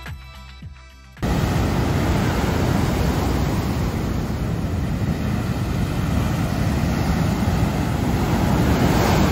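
Background music fades out, then about a second in it cuts to ocean surf: waves breaking and foaming up onto a beach as a loud, steady wash.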